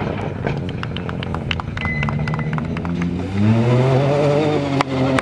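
Ford Fiesta rally car's engine pulling hard on a gravel stage. Its note climbs in pitch and grows louder about three seconds in, over a rapid crackle of sharp clicks.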